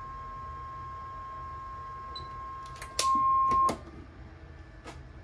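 A steady 1 kHz test tone with faint overtones, the audio tone used to modulate a CB radio transceiver on a bench test at full mic gain. About three seconds in come a few sharp clicks, a short, much louder burst of the tone lasting under a second, then more clicks.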